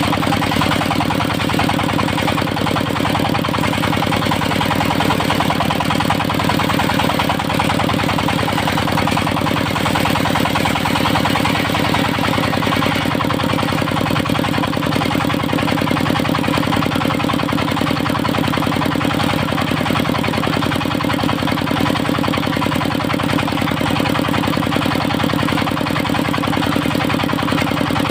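Engine of a mobile circular-saw sawmill running steadily at an even speed, with a regular firing beat.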